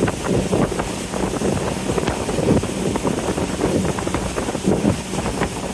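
A riverboat under way: a steady engine hum under the rush and splash of river water along the hull, with wind on the microphone.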